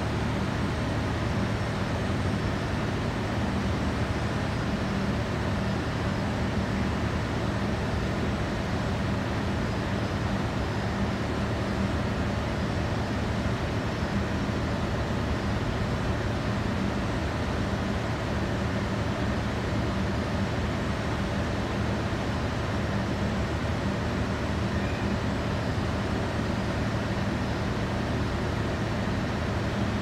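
Steady background rumble and hiss with a low hum, unchanging throughout, typical of urban traffic and machinery noise.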